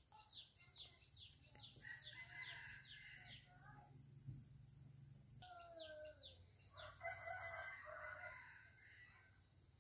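Faint rooster crowing, in two bouts about four seconds apart, mixed with small birds chirping in quick falling notes. A steady high insect trill runs underneath.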